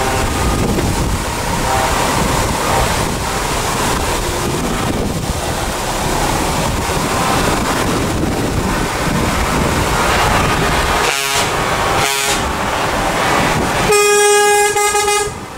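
A convoy of heavy trucks driving past with their diesel engines running. Near the end, a truck air horn sounds one long note lasting about a second and a half.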